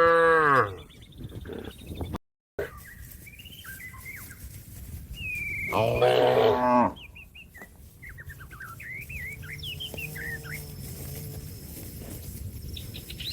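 Cow mooing: a loud call trailing off at the start, another loud moo about six seconds in, and a fainter, longer moo a few seconds later, calling to another cow. Small birds chirp between the moos.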